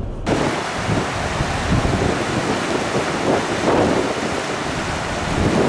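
Steady rushing roar of hurricane wind and storm noise, starting abruptly about a third of a second in, with gusts buffeting the microphone.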